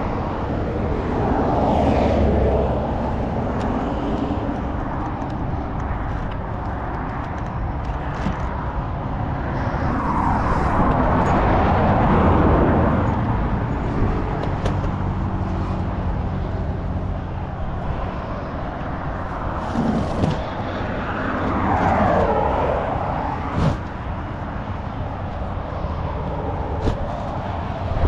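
Road traffic: vehicles passing one after another, each swelling and fading, about three times, over a steady low hum. A few short knocks in the second half.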